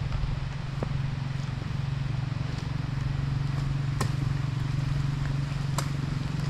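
An engine running steadily at a low, even hum, with a few sharp clicks or knocks over it.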